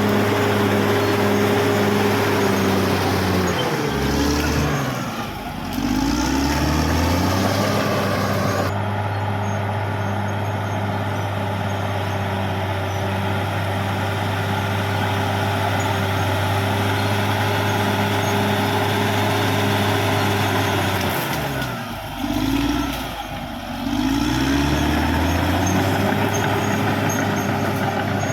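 Caterpillar D6R XL bulldozer's diesel engine running hard at high, steady revs. Twice the revs drop and climb back up, about five seconds in and again about three-quarters of the way through.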